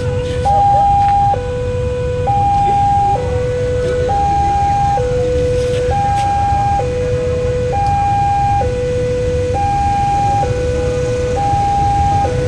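Railway level-crossing warning siren sounding a steady two-tone hi-lo alternation, each tone lasting just under a second, over a continuous low rumble.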